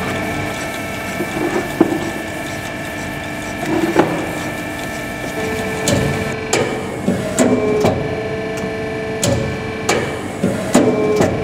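Amada CB-83 compact press brake running under test: a steady machine hum made of several constant tones, with a higher tone joining about halfway. Over it come sharp clunks and knocks as the machine cycles, a couple in the first half and many more in the second half.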